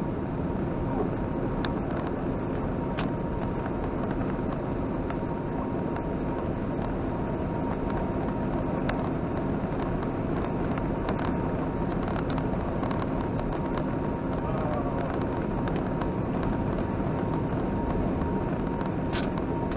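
Steady engine and road noise inside a moving truck's cab at highway speed, with a faint steady whine.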